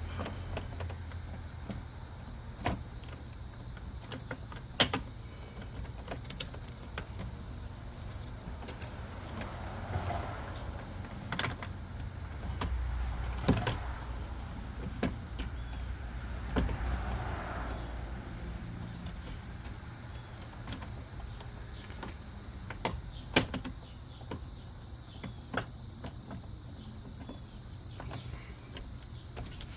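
Scattered sharp clicks and knocks from screws and a plastic bumper trim being worked into place, over a low steady rumble.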